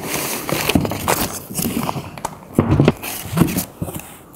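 Cardboard box rustling and scraping, with a few dull knocks, as a heavy 20-inch LED light bar is pulled out of its packaging.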